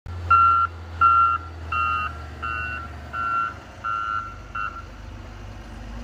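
Backup alarm of a John Deere 624K wheel loader beeping seven times, about one and a half beeps a second, then stopping, with the loader's engine running low underneath.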